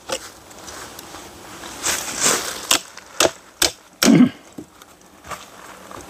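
Steel blade scraping and knocking against wood as it is worked into a cut in a tree trunk: a rasp about two seconds in, then four sharp knocks about half a second apart.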